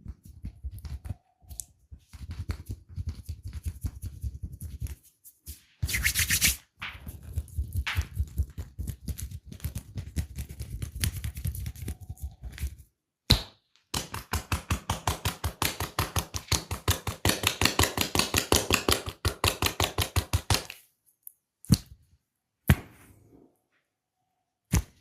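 Hand massage with fast percussive strokes on the body, one run at about nine strokes a second in the second half. A few single sharp cracks follow near the end.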